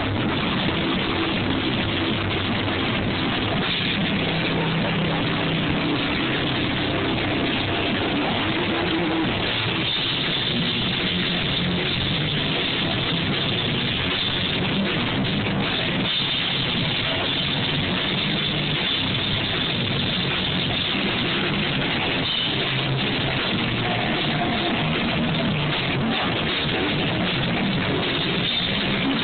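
Live hard rock band playing loud, with drum kit and electric guitars, heard through a camera phone's microphone that leaves it dull and distorted.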